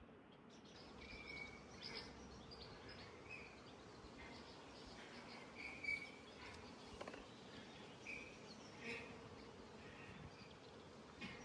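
Faint outdoor ambience with scattered short chirps of small birds and a steady low background hiss.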